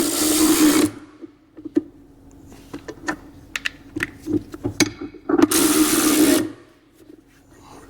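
Small cordless power tool run in two short bursts, near the start and at about five and a half seconds, spinning the servo adapter plate's mounting nuts down, with scattered metallic clicks and taps of tools and fittings between.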